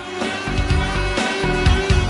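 Background music: an instrumental track with guitar over a steady low beat.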